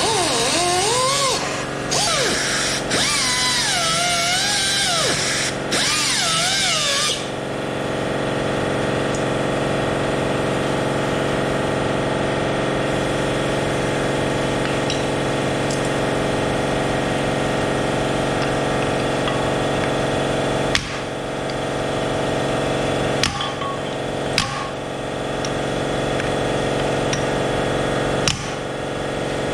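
Angle grinder cutting into a steel shaft for about seven seconds, its pitch wavering up and down under load, then stopping. A steady machine hum carries on after it, broken by a few sharp metal knocks near the end.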